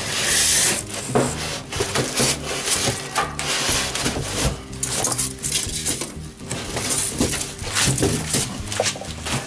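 Plastic wrapping rustling and crinkling, with polystyrene packing rubbing and the metal of a stainless steel gas grill clinking and knocking, as the grill is worked out of its box. A loud rustle comes in the first second, then many short clicks and knocks.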